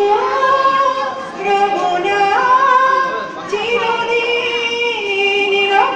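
A woman singing into a handheld microphone, holding long, drawn-out notes one after another.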